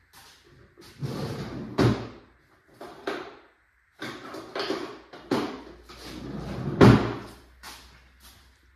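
Workshop clatter of hand tools and parts being handled while a hive lift is taken apart: a string of knocks and scrapes, with two louder thumps, one about two seconds in and one late on.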